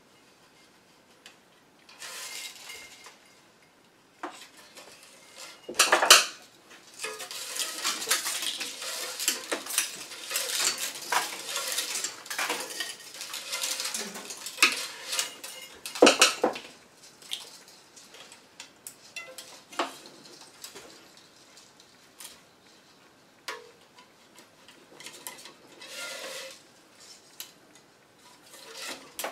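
Restringing a tennis racquet on a stringing machine: irregular metallic clinking, rattling and scraping as the strings and machine clamps are handled, with two sharp clacks about six and sixteen seconds in.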